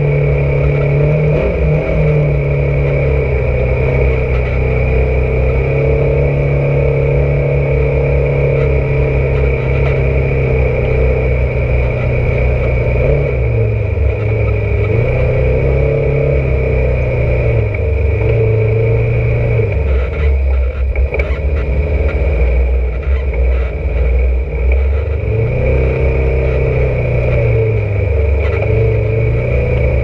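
Polaris RZR side-by-side's engine running at low driving speed, its note dipping and climbing back several times through the middle and near the end as the revs change.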